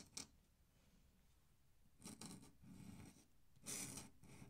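Faint scratchy strokes of an ink drawing tool dragging across drawing paper. There are short scratches at the very start, a quiet moment, then a run of strokes from about two seconds in, the loudest near the end.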